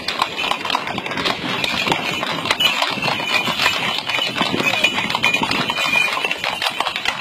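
Hooves of many walking horses on an asphalt road, a dense, irregular clatter of overlapping clip-clops.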